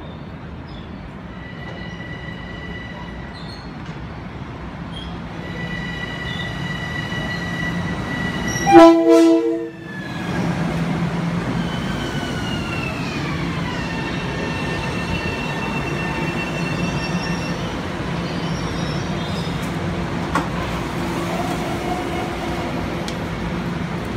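Long Island Rail Road M7 electric train pulling into the station: a steady high whine from its electric traction drive and the rumble of wheels, with one loud horn blast of about a second near the middle. After the horn the whine glides down in pitch as the train brakes to a stop.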